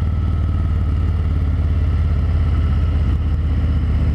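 Harley-Davidson Fat Boy's V-twin engine running steadily, its low, even exhaust pulse unchanging in pitch.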